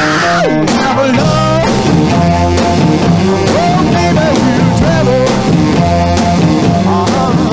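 Rock song with singing and guitar over a steady beat; a brief noisy crash right at the start.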